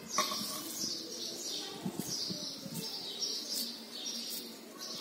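Hands squeezing and pinching a wet cabbage-and-flour batter in a steel bowl, giving soft squelching and pressing sounds. Repeated high chirping runs through the background.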